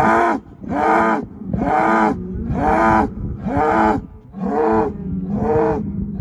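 Cattle bawling, one loud call after another about once a second, each rising and then falling in pitch.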